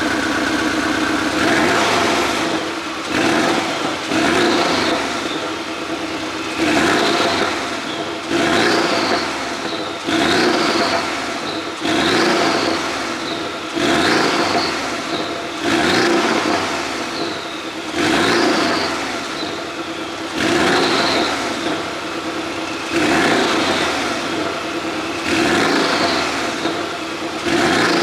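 Porsche 718 Boxster S turbocharged flat-four engine idling briefly, then revved in repeated blips about every two seconds, each rising and then falling back. The exhaust pops and crackles on the overrun from an ECU pop-and-bang tune.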